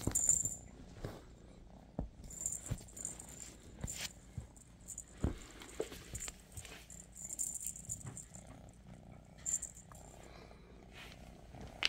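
Scottish Fold kitten playing with a feather wand toy on a couch: the feathers rustle and the wand's beads rattle in repeated short bursts, with a few sharp thuds of paws landing on the cushions, over a low purr.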